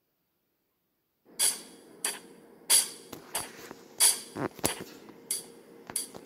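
A series of about nine sharp knocks or hits at uneven spacing, starting about a second in, over a faint steady hum.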